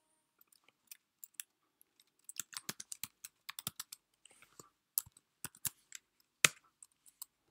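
Computer keyboard being typed on, an irregular run of key clicks that quickens after about two seconds, with one louder key strike about six and a half seconds in.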